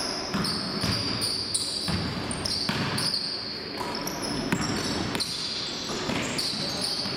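Basketball being dribbled and sneakers squeaking on a hardwood gym floor, with frequent short, high squeaks and repeated ball thumps.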